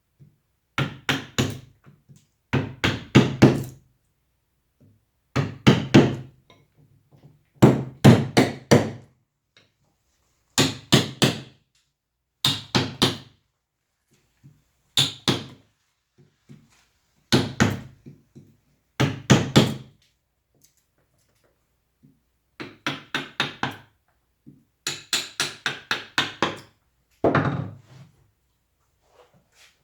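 Mallet tapping a carving chisel into wood in quick runs of three to six strikes, a new run every two seconds or so with short pauses between.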